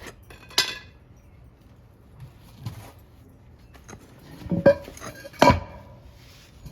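Steel tire pry bars clanking against metal: one sharp clank about half a second in, then a cluster of heavier knocks near the end, each ringing briefly.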